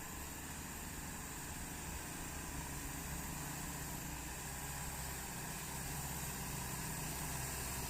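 A truck engine running steadily, slowly getting louder.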